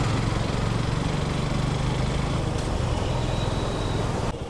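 Motorcycle engine running steadily while riding, with a rushing hiss of wind over it; near the end the hiss drops away suddenly, leaving the engine's low pulsing.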